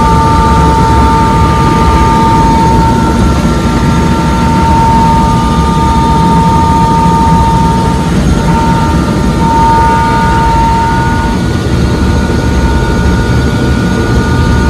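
Helicopter running loud and steady as heard from the passenger cabin: a high whine of several steady tones over a dense low rotor rumble, the whine shifting slightly in pitch a few times, as the helicopter takes off.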